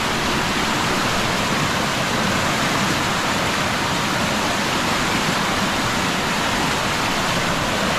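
Muddy floodwater rushing fast down a swollen creek channel, a steady churning flow of water with no let-up.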